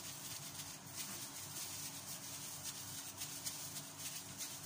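Plastic-gloved hand squishing and turning raw chicken pieces in marinade in a plastic bowl: a run of soft, short crackles and squelches over a steady low hum.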